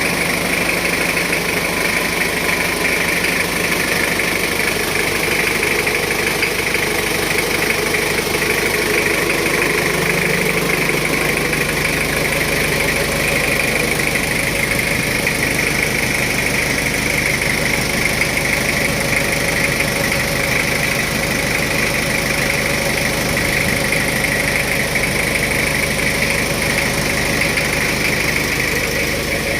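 Jeep Wrangler engine idling steadily, its tone shifting slightly about ten seconds in.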